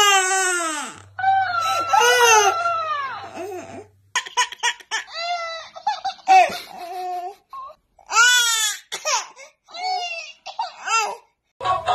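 Babies crying in short, wavering wails, with a dancing cactus toy repeating the cries back in a higher-pitched voice.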